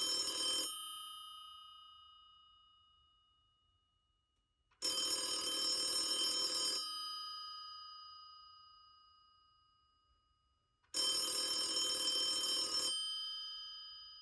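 Telephone bell ringing in about two-second bursts, roughly six seconds apart, each ring leaving the bell humming and slowly fading before the next.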